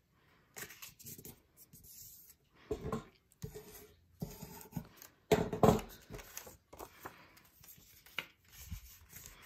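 Sheet of craft paper being folded by hand and its creases pressed flat, partly with a pair of scissors: a string of irregular rustles, rubs and scrapes, the loudest about five and a half seconds in.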